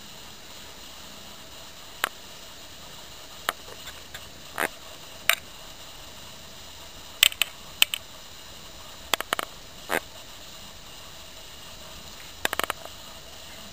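Steady hiss from a camcorder's microphone, broken by about a dozen sharp clicks and short scratchy rustles, some in quick clusters, from the handheld camera being handled.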